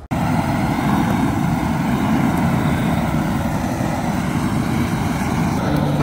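Long-handled gas torch burning with a steady, loud rush as its flame is blasted onto firewood in a metal fire pit to light it.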